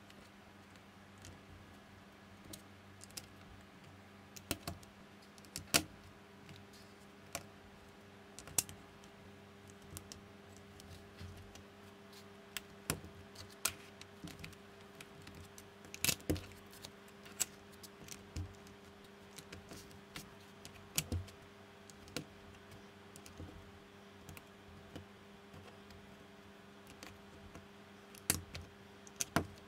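LEGO-compatible plastic bricks being handled and pressed together onto baseplates: irregular small clicks and snaps, with a few louder clicks now and then. A faint steady hum runs underneath.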